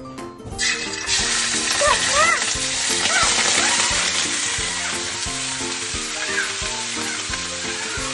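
Raw chicken pieces dropped into hot oil in a steel wok, sizzling and frying, the sizzle starting about half a second in and swelling about a second in, then holding steady as the pieces are stirred with a wooden spatula.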